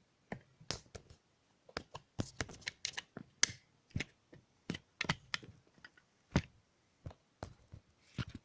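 Irregular sharp clicks and light metallic knocks, about twenty in a row at uneven spacing, from handling a repaired ХВЗ bicycle.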